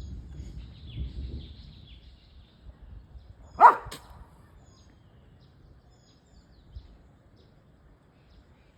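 A dog barks once, sharply, about three and a half seconds in. Birds chirp faintly in the background.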